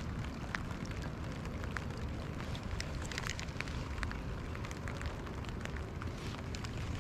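Rain falling: a steady hiss with many small, irregular ticks of drops, over a low rumble.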